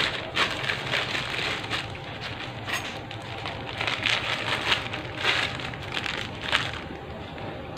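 Plastic bag crinkling and rustling in irregular bursts, which stop about seven seconds in.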